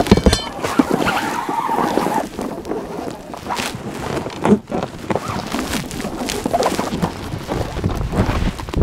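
Anchor and rope handling on an inflatable PVC boat: irregular knocks and clicks of the folding anchor and its rope against the bow fitting and rubber tube, over steady wind noise on the microphone.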